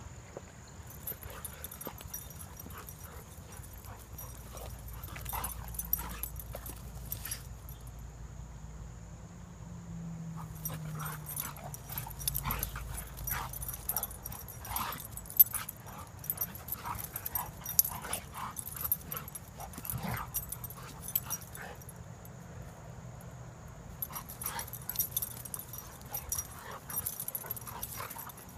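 Two dogs play-fighting, making many short, sharp vocal noises in irregular bursts, the loudest about fifteen seconds in.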